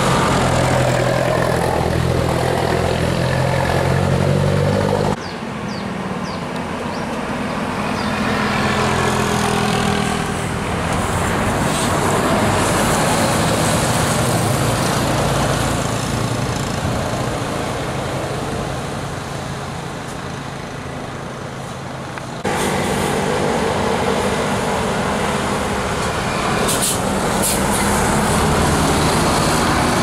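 Road traffic: the engines of passing buses, vans and a truck running with a steady low hum over road noise. The sound jumps abruptly twice, about five seconds in and again past the twenty-second mark.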